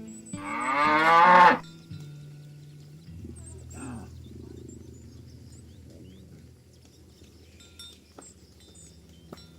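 A cow moos once, a call of about a second and a half that rises in pitch and grows louder before breaking off sharply.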